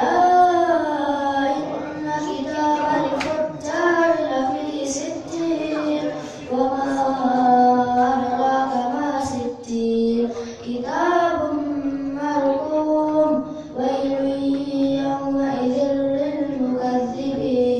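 A child's voice reciting the Qur'an in the melodic qira'ah (tilawah) style, holding long, ornamented, gliding notes in drawn-out phrases separated by short breaths.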